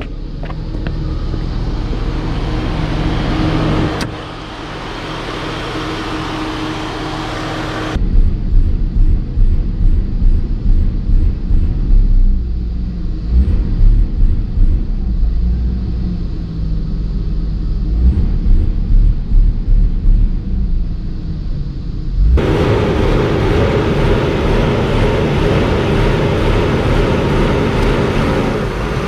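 Mercedes-Benz W124 E320's 3.2-litre straight-six engine running while parked. From about 8 seconds in it is heard from inside the cabin as a low rumble that swells and dips unevenly. From about 22 seconds in it is heard under the open bonnet, louder and fuller. The engine has a problem that leaves the owner asking what is wrong with it.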